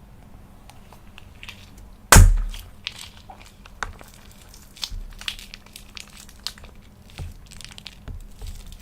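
Objects being handled: one loud, sharp crack about two seconds in, followed by scattered clicks and crinkling.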